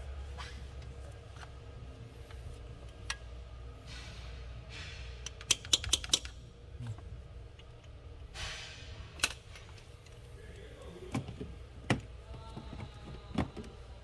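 Hammer striking a chisel to work the old oil pressure switch loose: scattered sharp metallic taps, with a quick run of four or five strikes about five and a half seconds in and single strikes after it.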